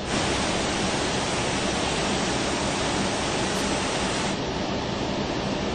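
Steady rushing cockpit noise in an Airbus A380 taxiing after landing, from the air conditioning and the running engines, with a faint low hum. It gets louder right at the start and a little duller about four seconds in.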